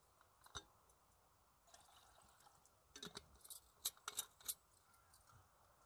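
Faint, scattered sharp clicks and snaps over near silence: one about half a second in, then a denser run of louder ones between about three and four and a half seconds in.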